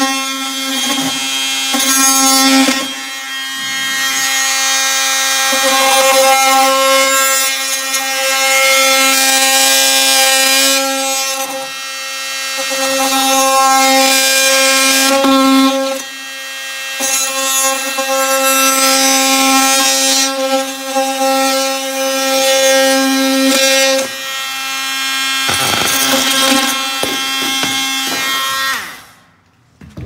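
Oscillating multi-tool cutting an outlet-box opening in a kitchen cabinet panel: a steady buzzing whine with a rough cutting noise. It eases off briefly a few times and stops about a second before the end.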